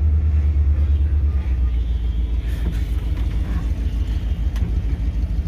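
Old Ford F-250 Custom pickup's V8 engine running as the truck drives, a deep pulsing rumble heard from inside the cab. The rumble drops to a lower level about a second and a half in.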